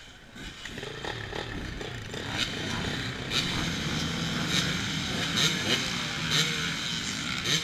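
Dirt-bike engines running, building up over the first couple of seconds, with sharp blips about once a second and some engines rising in pitch as they are revved.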